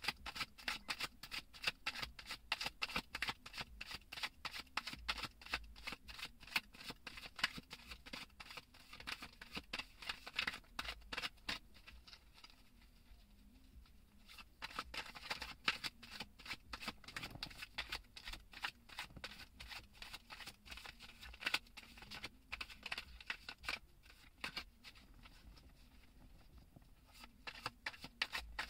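A deck of tarot cards being shuffled by hand: a rapid run of soft card-on-card flicks and riffles, easing off for a couple of seconds about halfway through and again near the end.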